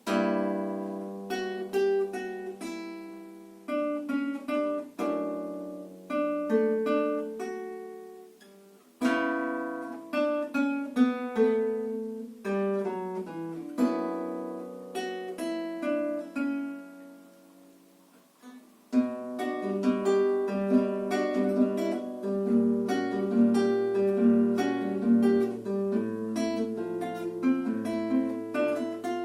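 Solo acoustic guitar playing a fingerpicked piece, each plucked note ringing and fading. New phrases begin about nine and nineteen seconds in, the last with a busier, deeper bass line under the melody.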